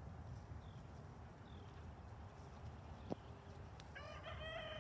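Low steady outdoor rumble with a few faint, short high bird chirps, then a rooster starts crowing near the end.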